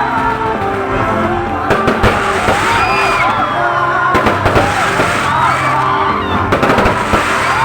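Fireworks going off in sharp bangs and crackles, with a cluster of them near the end, over loud music playing with steady bass notes.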